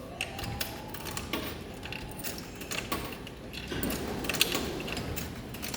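Claw crane game machine's mechanism at work, with a steady low hum and scattered clicks.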